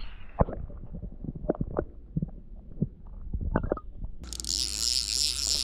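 Muffled underwater sound picked up by an action camera held below the lake surface, with a few dull knocks and clicks. About four seconds in a steady hiss starts suddenly.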